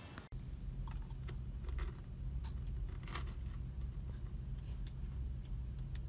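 Steady low electrical hum with a few faint scattered clicks, starting after a short dropout near the beginning.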